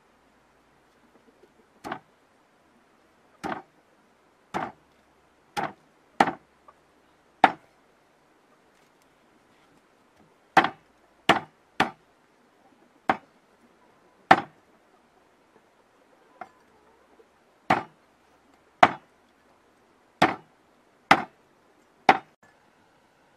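Meat cleaver chopping raw fish on a round wooden chopping block: single sharp chops about a second apart, around seventeen in all, with a pause of about three seconds early on the way through.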